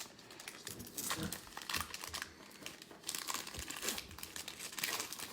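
Foil wrapper of a Prizm football card pack crinkling and tearing as it is opened, in several short bursts of crackle.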